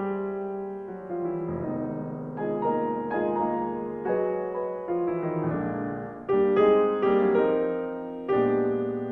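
Slow, gentle piano music: notes and chords struck one after another, each left to ring and fade, with a louder chord about six seconds in.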